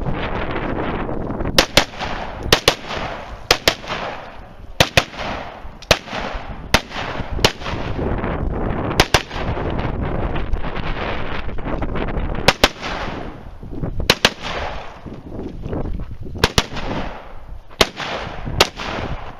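Semi-automatic AR-style rifle firing in quick pairs and small strings, with pauses of a second or two between groups, over a steady rushing noise.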